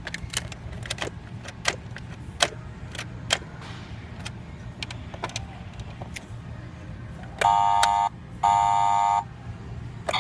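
Scattered clicks and taps of a hand on the hard plastic of a boxed Paw Patrol Chase police cruiser toy, then two steady electronic honks from the toy's sound unit, each under a second, about seven and eight seconds in.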